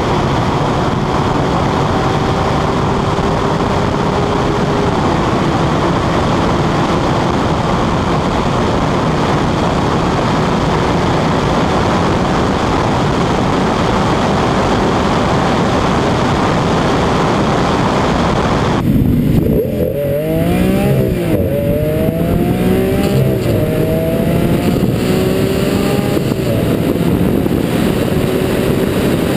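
Lamborghini Aventador's V12 pulling at around 200 mph, its note climbing slowly under a heavy rush of wind and road noise. About two-thirds of the way through, the sound changes abruptly to a clearer engine note that swoops up and down in pitch several times.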